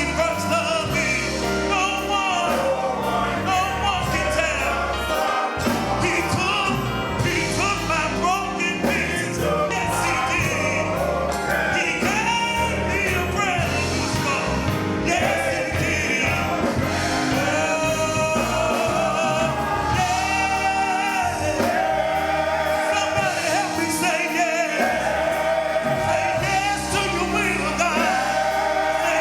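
Gospel music: a choir singing with a live band, bass and drums keeping a steady beat.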